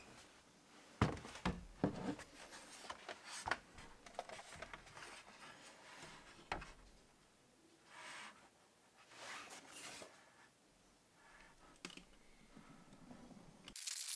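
Handling noises from an open sheet-metal NVR case being moved about: a few sharp clicks and light knocks with soft rustles between them. A plastic bag crinkles near the end.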